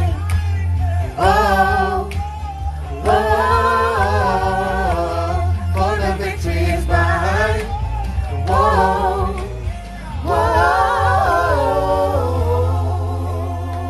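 A gospel vocal group singing, with sliding, bending vocal runs over a steady bass.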